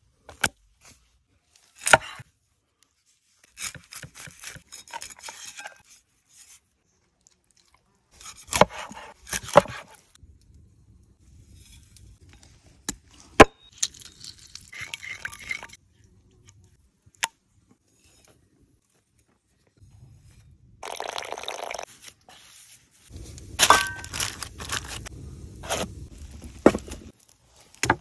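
Cleaver and food-preparation noises on a wooden board and wooden bowl: separate scrapes, knocks and sharp taps, with a longer stretch of scraping and knocking near the end.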